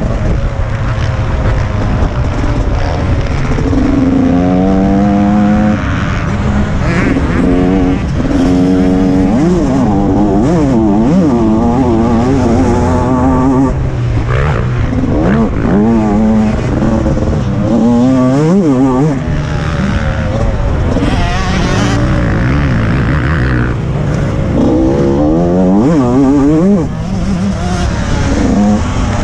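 TM 125 MX two-stroke motocross engine at full race pace, its pitch climbing hard and dropping again and again through throttle and gear changes, with wind rumbling on the microphone.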